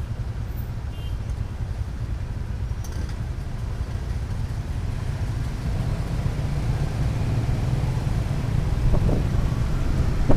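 Steady road and wind noise from a moving vehicle, a low rumble that grows a little louder toward the end.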